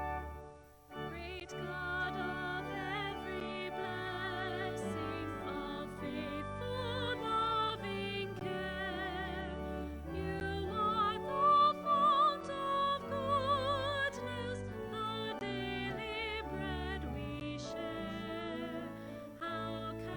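A singer with a strong vibrato over sustained organ chords; the music breaks off briefly and resumes about a second in.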